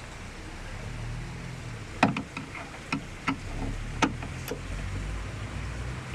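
About six sharp clicks and knocks, from tools and parts being handled while a car door window regulator is taken apart, over a low steady rumble.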